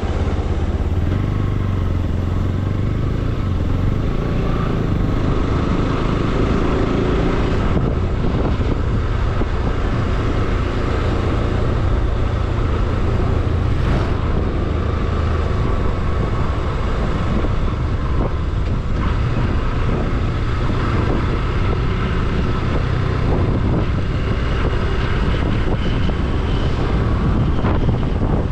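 Motorcycle engine running steadily while riding along a highway, a low, even engine note under road noise.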